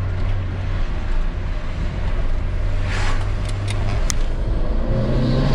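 VW Corrado G60's supercharged four-cylinder engine pulling the car along, heard from inside the cabin with road noise. A few light clicks come about halfway through. Near the end the engine begins to rev up as the car accelerates.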